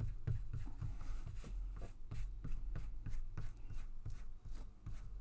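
Hands rubbing and pressing paper down onto a freshly glued book cover, a quick, uneven run of soft rubbing strokes several times a second.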